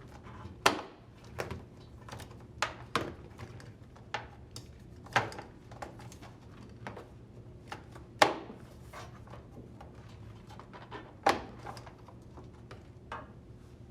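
Irregular clicks and knocks of plastic and rubber parts being handled as a washer's connector nozzle is worked out of the tub seal, the sharpest knocks about a second in, about five seconds in, about eight seconds in and about eleven seconds in.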